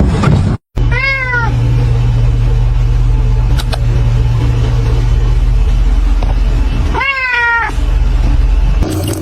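A cat meowing twice, two short calls about six seconds apart, over a steady low hum.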